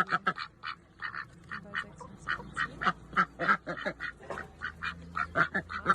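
Ducks quacking: a fast, continuous run of short quacks, several a second, some overlapping.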